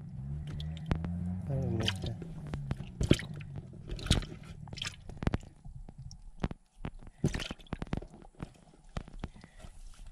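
Wet fish being handled in a plastic bag of water: squelching, sloshing and sharp crinkling clicks of plastic as fish are lifted out. A low voice is heard in the first two seconds.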